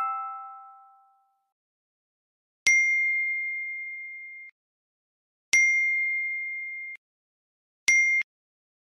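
Phone notification dings, like incoming text-message alerts. The last notes of a short falling chime ring out in the first second, then three single bright bell-like dings come about two and a half seconds apart, the first two ringing out and fading over a second or more, the third cut short near the end.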